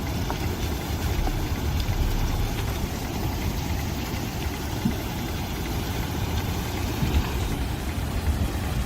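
Flooded Emme river rushing and carrying wooden debris, a steady low rumble.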